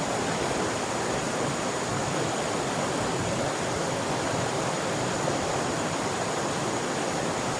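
Steady, even rushing noise of running water, with a faint steady high-pitched tone over it.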